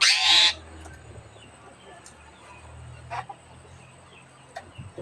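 A bilbong, a local Sulawesi bird, gives a loud harsh call at the very start, then shorter single calls about three seconds in and near the end, over a faint low hum.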